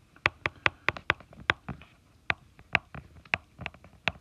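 Stylus tip tapping and clicking against a tablet's glass screen while handwriting, a quick irregular run of sharp taps, about three or four a second.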